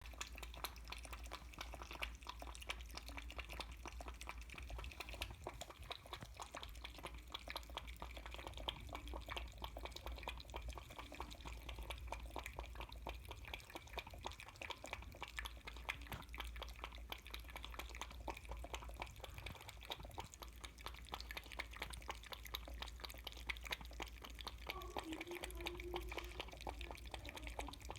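Kitten lapping milk: a rapid, continuous patter of small wet clicks from its tongue.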